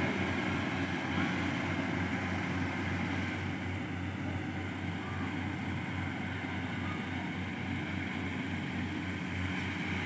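Combine harvester engine running steadily: a low, even drone with a slight regular pulse.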